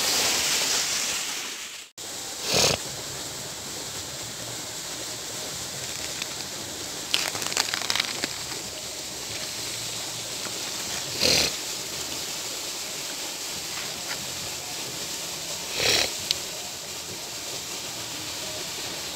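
Pumped irrigation water flowing along an earthen channel as a steady rush, with a few short louder bursts.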